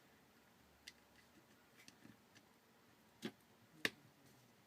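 Faint small clicks and taps of fingers working on a phone's internals. A louder tap, then one sharp click near the end as the new screen's flex cable connector is pressed onto its socket on the Nokia Lumia 1020's board.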